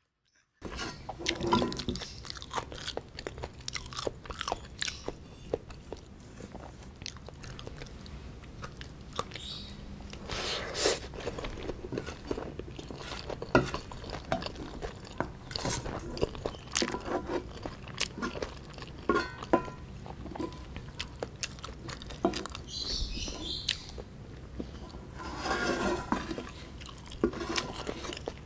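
A person chewing and crunching mouthfuls of bibimbap, with many short sharp clicks from the eating and from a wooden spoon working in a stainless steel bowl.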